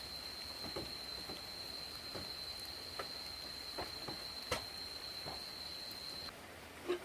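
A steady, high-pitched insect trill that cuts off near the end, with scattered light taps and drips.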